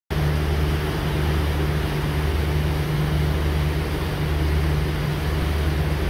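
A boat's engine running at a steady low hum, with the rush of its churning wake on top.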